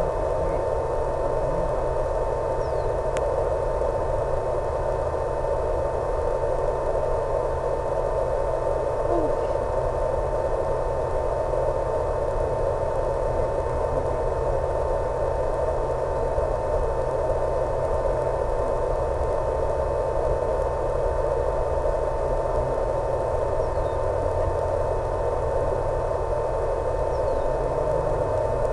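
Steady hiss and hum with one constant whining tone, unchanging, carried on the audio channel of an analog FPV video link from an electric RC plane in flight.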